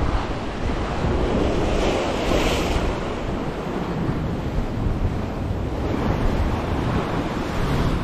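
Sea waves washing against shoreline rocks, with wind rumbling on the microphone; one wave comes in louder about two seconds in.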